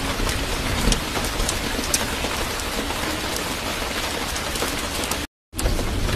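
Steady rain-like hiss with many scattered light ticks. The sound cuts out completely for a moment about five seconds in, then returns unchanged.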